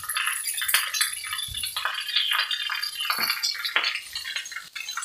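Heavy rain falling: a steady hiss with many irregular sharp taps of drops striking close by.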